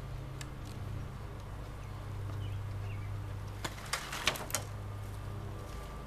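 Low, steady hum of a honeybee colony in an open hive. A few sharp wooden knocks and scrapes come about four seconds in as the wooden sugar-feeder rim is lifted off the hive box.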